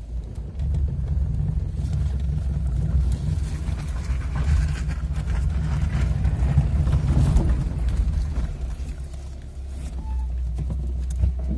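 Lada Samara 2109 (VAZ-2109) driving on a test drive after a gearbox repair: a low, steady engine and road rumble. It grows louder over the first several seconds and eases off briefly near the end.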